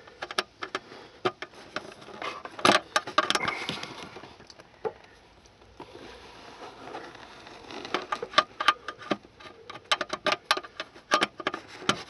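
Ratchet wrench clicking in short runs as the PCM's mounting nuts and bolt under the dashboard are loosened, mixed with tool-on-metal knocks. The clicks come fast and thick in the last few seconds.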